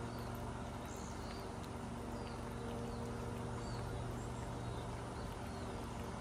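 Grass-cutting machine's engine running steadily, a constant drone with no change in pitch, while small birds chirp now and then.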